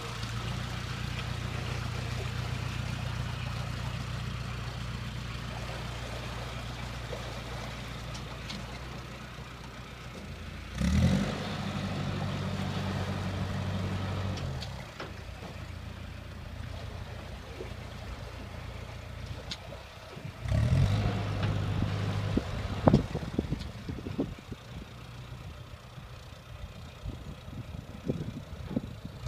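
Narrowboat engine running at a low steady beat, throttled up twice, with a short rise in pitch and loudness each time, about a third of the way in and again past the middle. A few sharp knocks follow the second burst of throttle.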